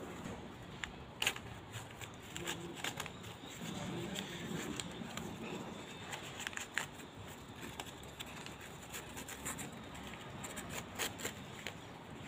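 Newspaper being crumpled and peeled apart by hand, crinkling and rustling, with scattered sharp crackles, a few of them louder.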